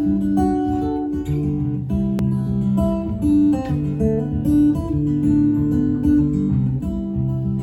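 Acoustic guitar playing an instrumental intro, strummed chords changing every second or so.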